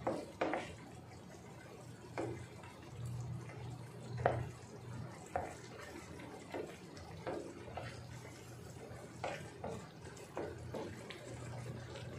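Risotto with butternut squash simmering in a wide pan: the starchy liquid bubbles and pops irregularly as a wooden spoon stirs through the rice, over a steady low hum.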